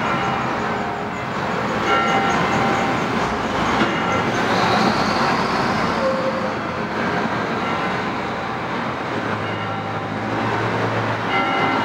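Bells tolling, a ringing stroke every few seconds that fades slowly, over steady street traffic. A vehicle passes about four to six seconds in.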